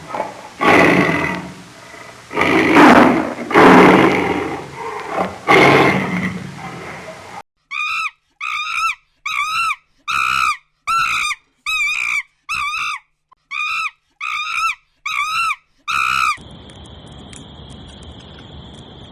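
Wild animal calls in three parts: first a run of loud, rough calls lasting about seven seconds, then about a dozen short pitched chirping calls, each bending up and down, spaced a little under a second apart, and finally a steady high-pitched whine over a light hiss.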